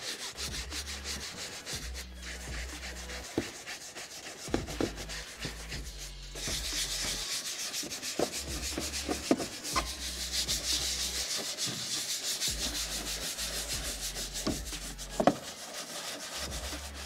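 Carbon Collective interior cleaning brush scrubbing a car's fabric and plastic door panel in quick back-and-forth strokes, working foaming fabric cleaner into the material. The scratchy bristle noise grows louder and hissier about six seconds in, with a few light knocks of the brush against the panel.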